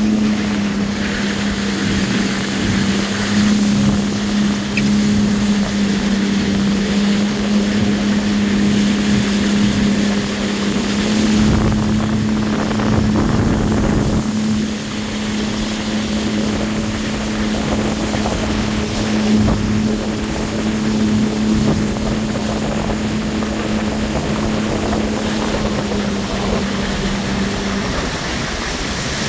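Jet ski engine running at a steady cruising pitch, with wind buffeting the microphone and water rushing past the hull. Its even note drops away shortly before the end.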